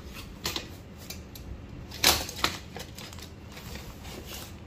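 Aluminium frame bars of a portable projector screen clacking against each other as they are lifted and shifted in their nylon carry bag. There is a light click about half a second in and a louder pair of knocks about two seconds in.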